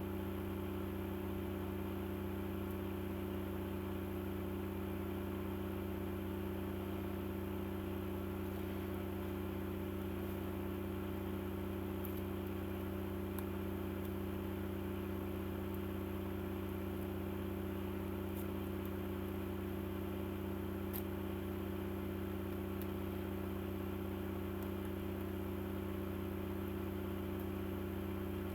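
Steady low machine hum, unchanging throughout, with a few faint ticks.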